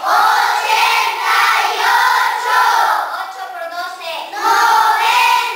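A class of schoolchildren chanting their multiplication tables in unison in Spanish, in short, even phrases.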